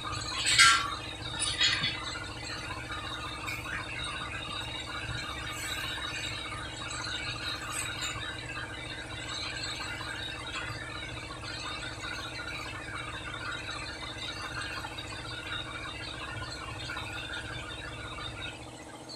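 Two short, loud squeals about half a second and a second and a half in, rubber of a truck tire squeaking against its steel rim as the tire is forced over it by hand; then a steady low hum and hiss.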